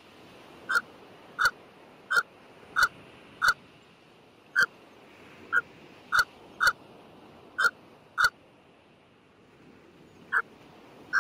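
A bird's short, sharp calls, about a dozen in quick succession with a pause before the last, over a steady hiss of background noise.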